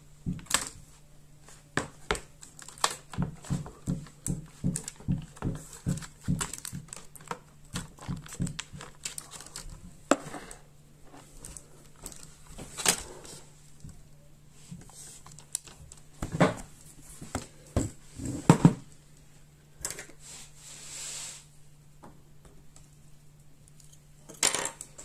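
A plastic laptop palm rest being pried and flexed away from the metal chassis: a string of small sharp plastic clicks and snaps, about two a second at first, then scattered louder knocks and handling clatter as the laptop is turned over.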